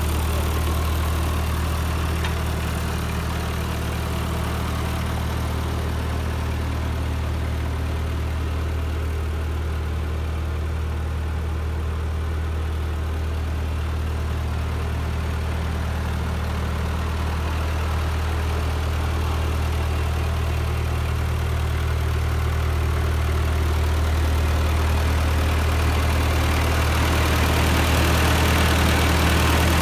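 1943 Ford tractor's four-cylinder engine idling steadily, growing louder near the end.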